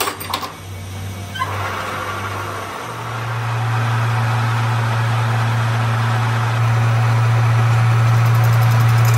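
A few metal clanks, then a metal lathe's electric motor starts and settles into a steady low hum as the chuck spins, growing louder about three seconds in and again a few seconds later.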